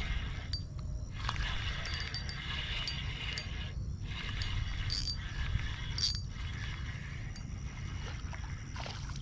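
Spinning reel being cranked steadily to bring in a hooked largemouth bass, its gears and line whirring, over a steady low rumble. Two short sharp sounds come about a second apart near the middle.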